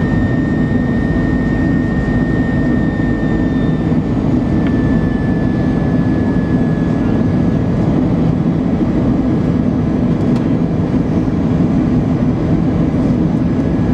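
Airbus A321 cabin noise during the approach to landing: a steady low roar of the jet engines and airflow, with a thin high engine whine that dips slightly in pitch about five seconds in.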